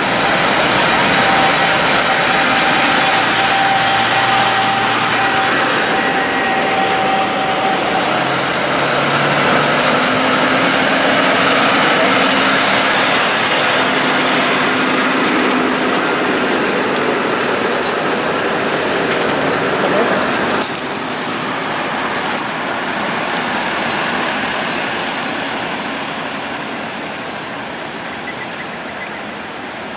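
Heavy Mack prime movers hauling oversize mining dump truck loads passing close by: diesel engines running and heavy tyre noise on the road, with a steady whine for several seconds near the start. The noise drops suddenly about two-thirds of the way through, then fades as the convoy moves away.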